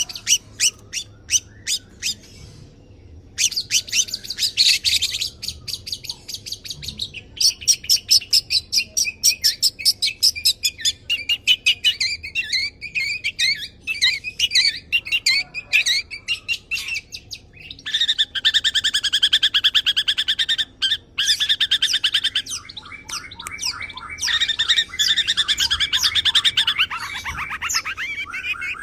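Long-tailed shrike (cendet) singing a fast, varied song of rapid repeated notes that switches to a new phrase type every few seconds, with a few short pauses. The song is packed with mimicked phrases of other birds and rapid-fire runs.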